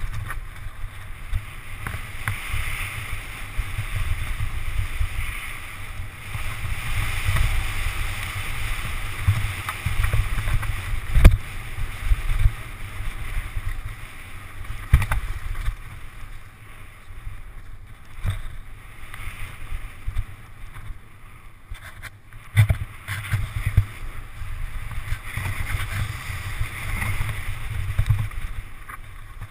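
Wind buffeting a helmet or bike-mounted camera's microphone and mountain bike tyres rolling fast over a gravel dirt trail, with a low rumble and the bike rattling. A few sharp knocks come as the bike hits bumps, the loudest about 11 seconds in.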